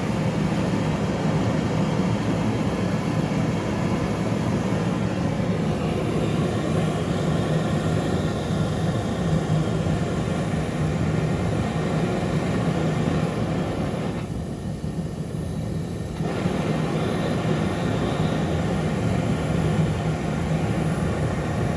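Gas forge burner running steadily at 30 psi, a loud continuous rushing sound with a low hum. Around two-thirds of the way through the higher part of the sound drops away for about two seconds, then comes back.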